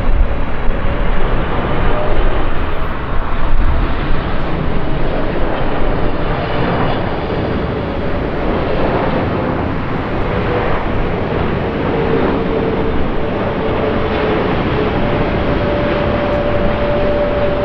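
Boeing 777-300ER's twin GE90 turbofan engines on final approach, a continuous jet roar. It is louder and more uneven over the first few seconds, then settles, with a steady whine holding under the roar through the second half.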